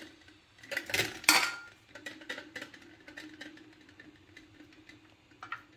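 Two or three sharp clinks of kitchen crockery, utensil against ceramic, about a second in, one with a brief ring. After them comes a quieter stretch with a faint steady hum.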